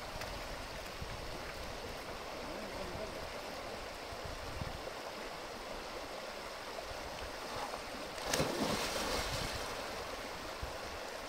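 Shallow river running over stones, a steady rush of water. About eight seconds in, a splash into the water lasts about a second.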